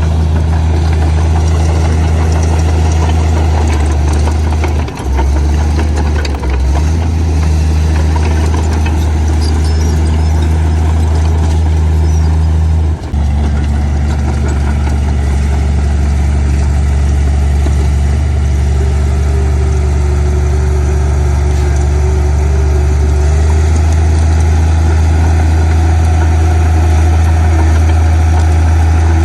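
Heavy diesel engine of earthmoving machinery running steadily at a constant low pitch. There are brief dips about 5 and 13 seconds in.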